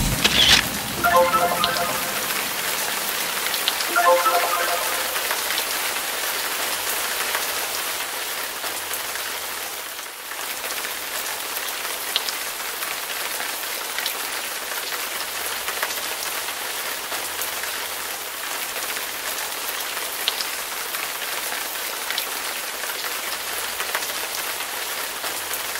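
Steady rain falling on a wet road, an even hiss throughout. Two short pitched sounds break through in the first few seconds.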